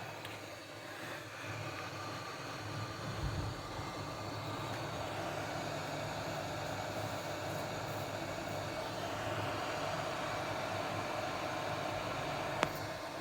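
Hot air rework station blowing steadily, with one sharp click near the end.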